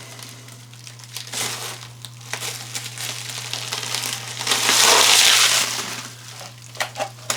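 Packaging crinkling and rustling as a boxed gadget is unwrapped, loudest about five seconds in.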